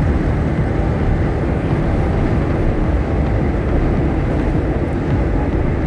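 Steady wind rush and road noise from a moving motorcycle, picked up on the rider's microphone, with the engine running underneath.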